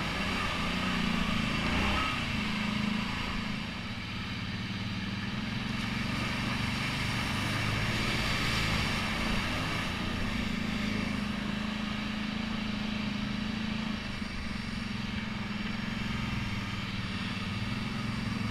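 ATV engine running at a steady trail-riding pace, its pitch holding fairly even with only small rises and dips.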